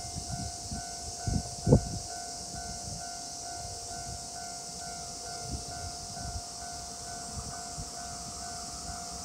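Railway level-crossing warning alarm ringing steadily at about two beats a second, the signal that a train is approaching. It sounds over a steady high hiss, with a couple of low thumps in the first two seconds.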